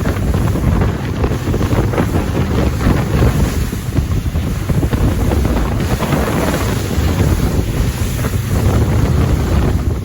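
Wind buffeting the microphone aboard a boat under way on open water, a loud gusting rush with water noise beneath, cutting off abruptly at the end.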